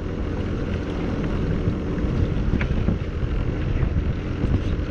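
Jet ski engine running steadily at idle, in neutral just before being put into drive.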